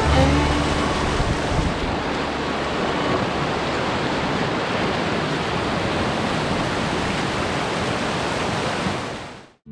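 River rapids: a steady rush of churning whitewater, fading out near the end.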